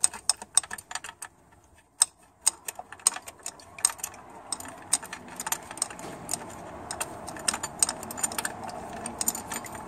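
Spanner on the linkage nut of a C4 automatic transmission's selector shaft, making quick irregular metallic clicks and taps as the nut is undone. A faint steady hum comes in about halfway.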